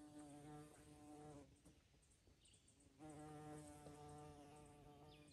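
Faint buzz of a flying insect's wings near the microphone, in two spells: one over the first second and a half, and another from about three seconds in.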